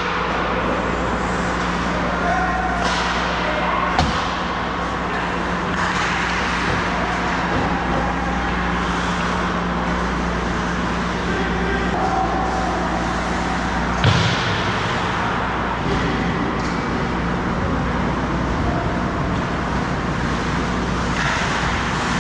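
Ice hockey rink during play: a steady low hum under skates scraping the ice, with two sharp knocks, about 4 and 14 seconds in, and faint voices.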